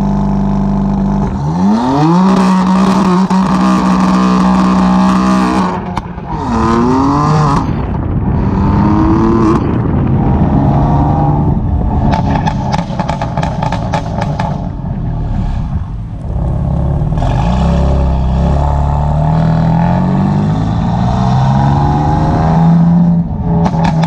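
Exhaust of a 2016 BMW M4 with its twin-turbo straight-six, fitted with downpipes and a tune, in Sport Plus mode. It idles briefly, then revs up and pulls away, the pitch climbing and dropping again several times as it accelerates through gear changes, with runs of pops and crackles between the pulls.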